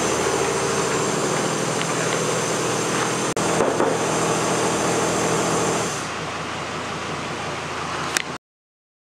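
A machine running steadily with a hiss and a hum, a little quieter from about six seconds in, cutting off abruptly near the end.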